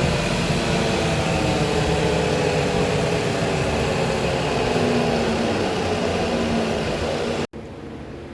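Shoe-repair finishing machine running steadily, a sander or grinder working the built-up sole, its motor pitch drifting slightly as the work is pressed against it. The sound cuts off abruptly near the end.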